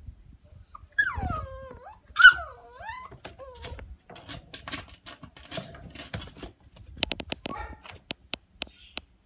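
Shiba Inu puppy whining to be let out of its pen: two high whines that slide down in pitch, the second the louder, followed by a run of light clicks and taps as it moves about in the wire pen.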